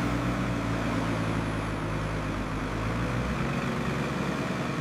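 A heavy truck's engine running steadily with a low hum. The deepest part of the hum falls away about three and a half seconds in.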